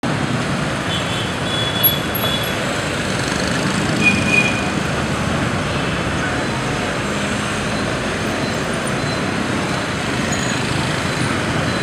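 Steady din of motorbike and scooter traffic through a busy intersection, small engines running as they pass. A few short high beeps come about two and four seconds in.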